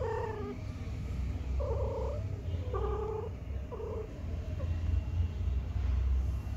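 Domestic cat giving short, low moaning calls, four in quick succession, over a steady low rumble.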